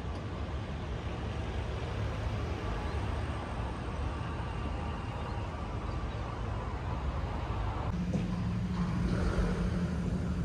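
Steady low engine and traffic rumble, with a steady low hum joining about eight seconds in.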